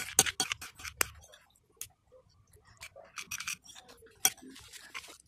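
Metal spoon clinking and scraping against a ceramic plate of rice porridge, a quick run of sharp taps in the first second and scattered ones after, with one loud clink about four seconds in.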